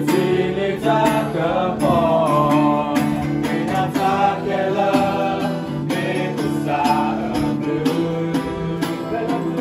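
A song with a singing voice over guitar and a steady beat.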